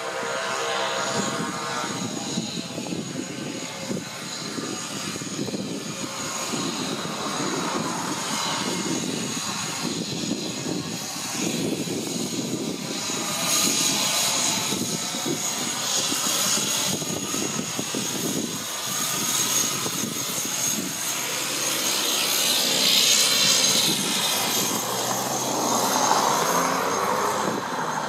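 Single Pratt & Whitney PT6A turboprop of a Cessna 208B Grand Caravan running as the plane rolls along the runway after landing: a steady turbine whine over propeller noise, growing louder in the second half.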